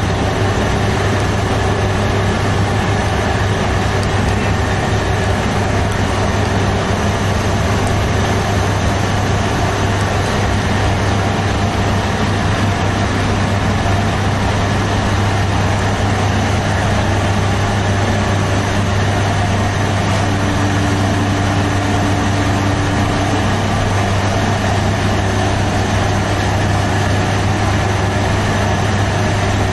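Steady low drone of bakery machinery running, a constant hum with no break, and a brief higher hum for a few seconds about two-thirds of the way through.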